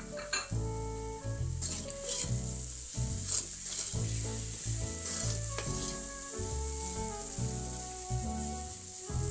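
Ground moong dal stuffing sizzling in oil in a kadhai while a wooden spatula stirs and scrapes it, with background music underneath.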